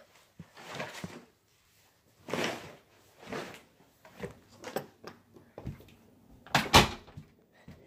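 Scattered knocks, bumps and rustles of handling, with a louder sharp bang near the end.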